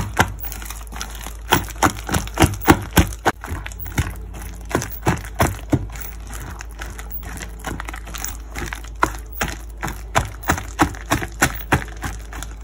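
A hand beating thick ground urad dal batter for medu vada in a stainless steel bowl: a quick, irregular run of wet slaps, about two to three a second. The beating releases the air inside the batter so the vadai come out soft.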